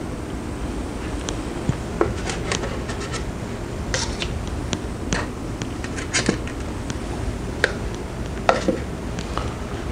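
Handling noises at a lab bench: scattered light clicks and scrapes of metal tongs and plastic lids being picked up and set down, over a steady low background hum.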